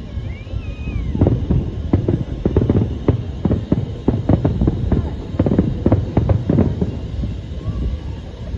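Fireworks going off: a rapid, uneven run of bangs and crackles that keeps on throughout.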